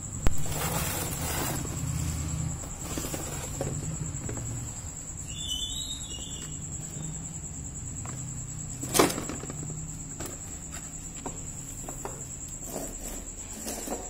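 A steady high-pitched insect trill, with rustling in the first few seconds and two sharp knocks, one right at the start and one about nine seconds in.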